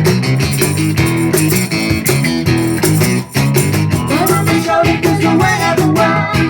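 Live ska-punk band playing at a steady beat, with guitar, bass and drums; a higher melodic line joins about four seconds in.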